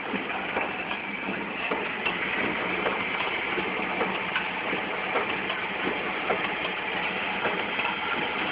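Automatic sachet packing machine running: a steady mechanical hum with frequent short clicks and knocks from its moving parts.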